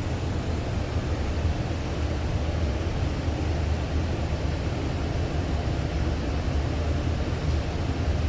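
Steady low hum with an even hiss, unchanged throughout: background machinery noise in a paint shop.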